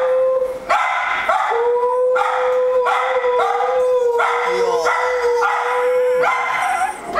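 Chihuahua crying in distress, separation crying from being left at the vet: a long, steady high whine with short yelping cries repeated about twice a second over it, breaking briefly about a second in and dying away near the end.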